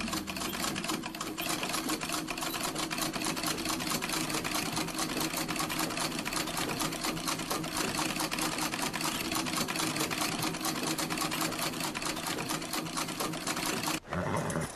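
Singer sewing machine stitching: a fast, steady mechanical clatter of the needle mechanism that stops abruptly near the end.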